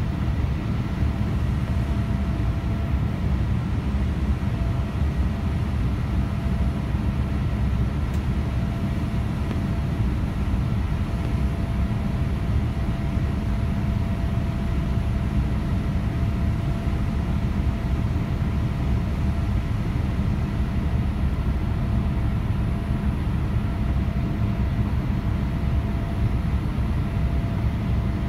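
Steady cabin noise of a Boeing 787-8 in flight, heard from a seat beside the wing: a deep even rumble of airflow and its GEnx-1B turbofan engines, with a few faint steady whining tones above it.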